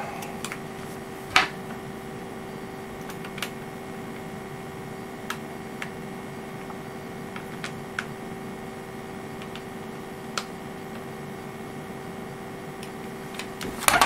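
Faint, scattered small clicks and ticks at uneven intervals, the loudest about a second and a half in, from small screws and nuts being fitted into a clear acrylic single-board-computer case by hand, over a steady low electrical hum.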